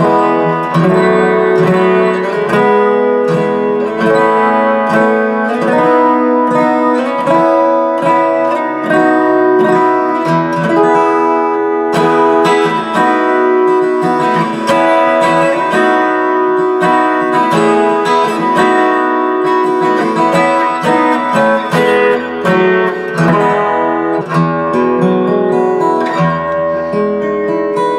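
Gibson J-50 acoustic guitar played with a flatpick, chords and picked single-note lines. It is heard amplified through its K&K Mini pickup via a Boss ME-25 effects unit, with a light flange effect on.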